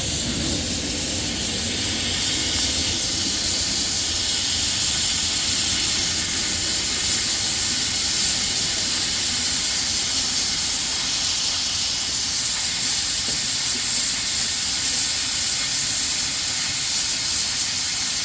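Steady hiss of steam escaping from a 2-foot narrow-gauge steam locomotive.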